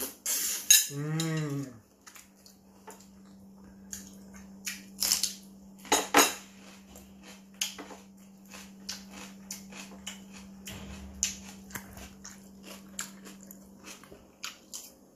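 Close-up eating sounds: chewing a mouthful of rice and chicken, with a metal spoon and fork clicking and scraping on a ceramic plate. A short hummed "mm" from the eater about a second in, and a steady low hum throughout.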